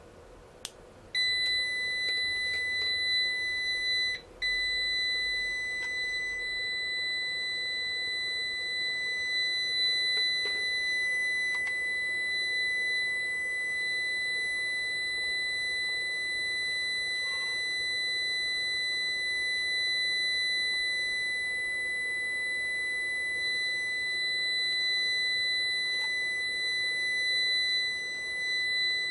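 Solar inverter's alarm buzzer sounding one continuous high-pitched tone. It starts about a second in, cuts out for a moment near four seconds, then holds steady, with a few faint clicks of handling over it.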